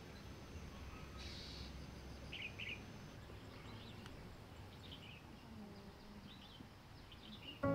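Faint small birds chirping now and then, short high chirps over a low steady hiss. A sustained musical chord comes in right at the end.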